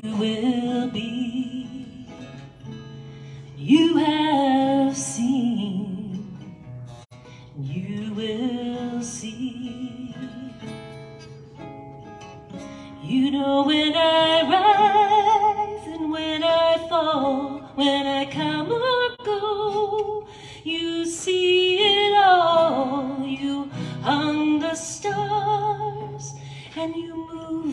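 A woman singing live while accompanying herself on acoustic guitar, the voice moving in phrases with short breaths between them over the sustained guitar chords.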